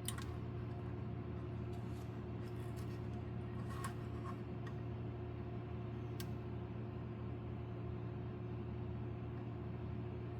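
Steady mechanical hum of a room air conditioner running, with a few faint clicks from the model being handled.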